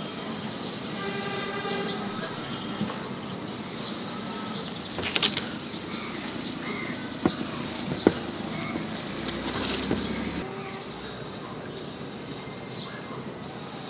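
Street-side background with traffic going by. A pitched sound with several overtones swells about two seconds in and is the loudest thing. A plastic bag crackles briefly as it is handled about five seconds in, and there are two sharp clicks a little later.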